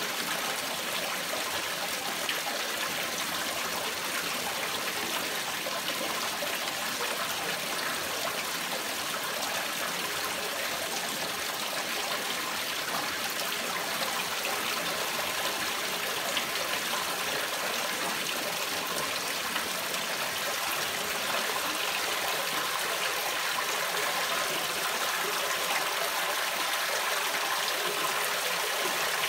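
Water rushing and splashing steadily through a homemade fleece filter for a koi system, getting a little louder in the last several seconds.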